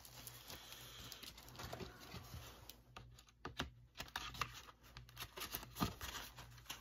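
Faint handling of a DVD box set and its plastic disc holder: scattered light clicks and rustles, with one sharper click near the end.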